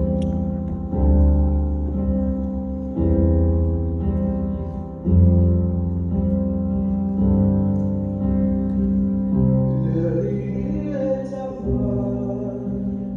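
Keyboard music playing slow, sustained chords with deep bass notes, changing about every two seconds. A voice briefly sings along about ten seconds in.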